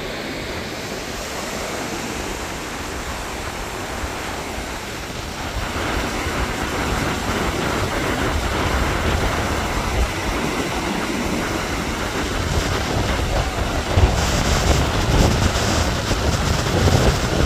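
Rough surf breaking and washing up a sandy beach in a strong gale over 20 knots, the wind buffeting the microphone with a low rumble. A steady rushing noise that grows louder about six seconds in.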